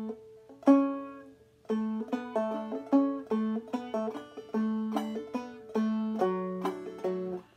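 Open-back banjo in Double D tuning played clawhammer style: a phrase of single plucked melody notes rather than brushed chords, in an even bum-diddy rhythm, over a steady ringing drone note. There is a short pause about a second in, and the playing stops just before the end.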